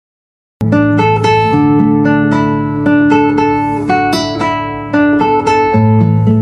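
Background music: picked guitar notes over sustained low notes, starting abruptly after a moment of silence.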